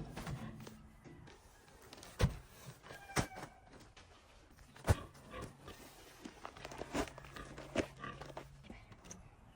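A few sharp knocks and clicks, spaced a second or two apart, with faint chicken clucking among them.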